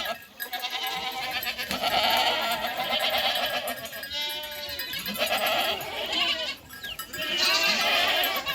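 Goats bleating: a run of about five wavering calls, one after another with short gaps, some overlapping as from several animals.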